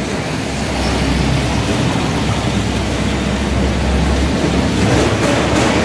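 Water pouring and splashing steadily in a small decorative wall fountain, heard as a continuous hiss, with a low rumble that stops about four seconds in.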